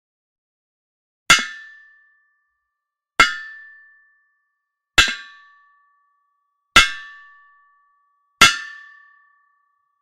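A hammer striking metal five times, one blow about every two seconds. Each is a sharp clang that rings on with a high tone and fades within about a second.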